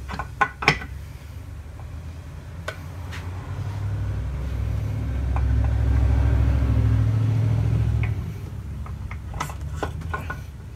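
Metal clinks and knocks from parts being worked loose inside an NP241DHD transfer case: a few near the start and a cluster near the end. In between, a low rumble swells and fades, loudest in the middle.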